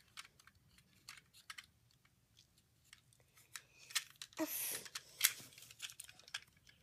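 Small plastic clicks and taps from a toy ice cream truck and its pieces being handled, with a short rustle about four and a half seconds in and a sharp click just after.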